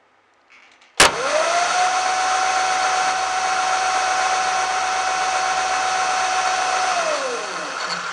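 Razor E300 scooter's electric motor switched on with a click, spinning up within a fraction of a second to a steady high whine, holding for about six seconds, then winding down near the end. It is running off load on a pack of salvaged laptop lithium-ion cells, drawing about 8 amps at first and settling to about 5.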